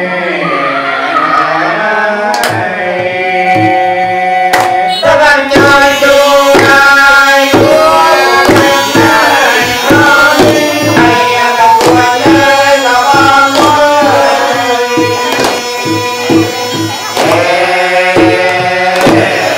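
Traditional Khmer wedding music: a melody played over quick hand-drum strokes, growing louder about five seconds in.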